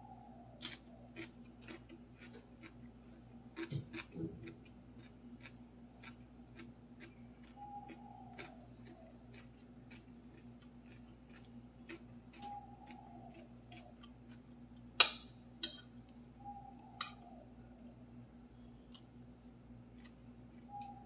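Eating sounds: mouth clicks from chewing and a metal spoon tapping and scraping a ceramic plate, with a sharp clink about fifteen seconds in, over a steady low hum. A short falling tone comes back every four to five seconds.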